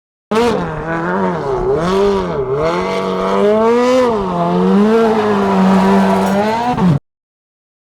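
Car engine revving, its pitch rising and falling repeatedly, starting and cutting off abruptly with the edit.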